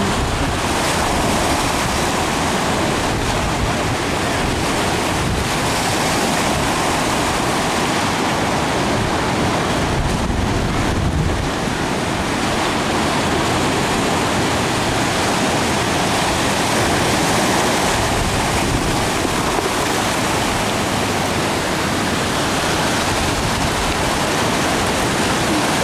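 Ocean surf breaking and washing in a steady rush, with wind on the microphone.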